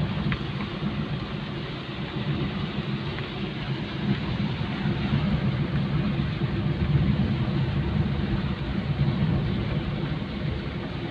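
A vehicle running steadily, a continuous low rumble mixed with the hiss of rain.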